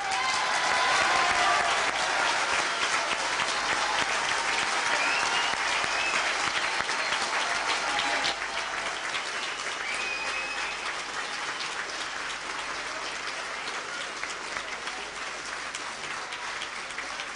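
A large banquet-hall crowd of several hundred people giving a long ovation: dense applause, loudest at the start and slowly dying down.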